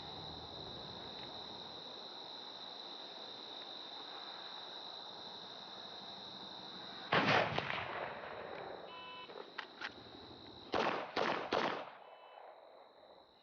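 Crickets trilling steadily, with a loud sharp bang about seven seconds in. Then a shot timer's start beep, three quick pistol shots fired within about a second, and the timer's par beep about three seconds after the start beep, marking the 3-second limit.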